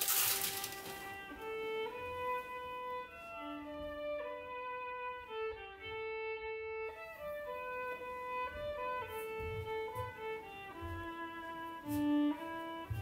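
Violin playing a slow melody of held notes.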